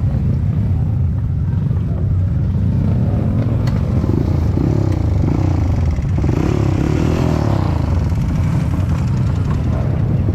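Dirt bike engine running, its revs rising and falling several times in quick succession in the middle, over a steady low rumble.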